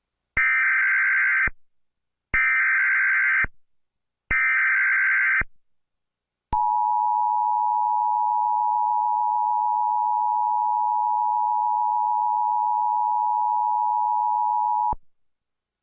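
Emergency Alert System signal from a mock tornado warning: three warbling SAME data header bursts about a second each, then the two-tone attention signal held steady for about eight seconds before it cuts off sharply.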